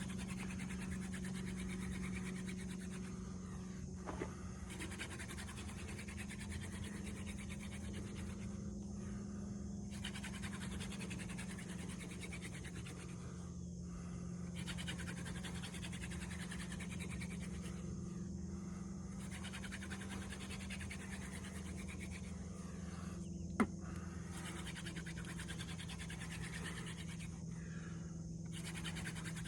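Horseweed hand drill spindle spun rapidly back and forth between the palms in a tulip poplar fireboard: a continuous dry rubbing of wood on wood, broken by short pauses about every four to five seconds as the hands reach the bottom of the spindle and go back to the top. A sharp click about three-quarters of the way through, over a steady low hum.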